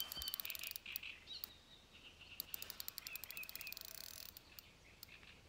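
Faint birdsong, with two runs of rapid sharp ticking: one at the start and one lasting nearly two seconds in the middle.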